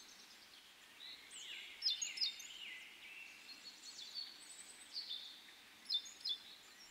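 Songbirds chirping and calling outdoors over a faint steady hiss, with short sharp chirps standing out about two seconds in and again near five and six seconds.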